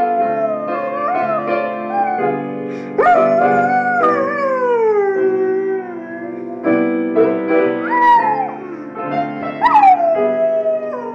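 A dog howling along to jazz music: several long howls, each jumping up sharply and then sliding slowly down in pitch, over steady held notes from the music.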